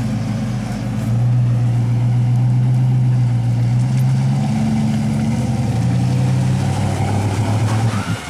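Lifted Chevrolet Silverado Z71 pickup's engine running hard under load as the truck pushes through deep pond water and clay mud. The note steps up about a second in, holds with small rises and dips in pitch, and drops away near the end.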